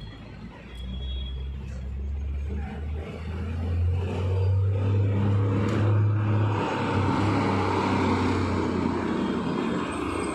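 A road vehicle's engine running close by, a low hum that starts about a second in and steps up in pitch a few seconds later, with street traffic noise growing louder behind it.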